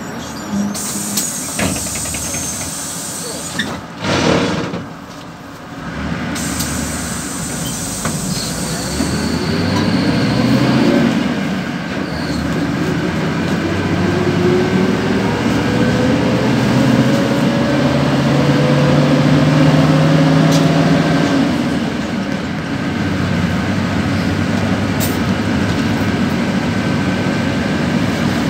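PAZ 32054 bus's V8 engine heard from inside the cabin, with the interior rattling. There is a loud clunk about four seconds in, then the engine note rises steadily for about twelve seconds as the bus accelerates, and drops back after that.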